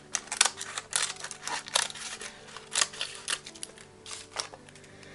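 Scissors snipping through paper: a run of irregular sharp snips and short rasps, mixed with paper being handled.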